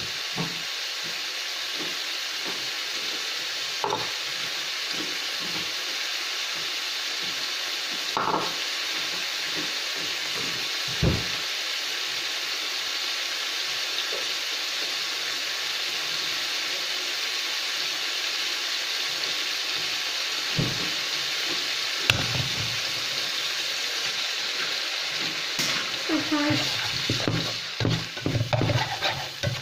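Pork and garlic sizzling steadily in hot oil in a large nonstick frying pan, with a few light knocks. Near the end a plastic slotted spatula stirs and scrapes through the pan.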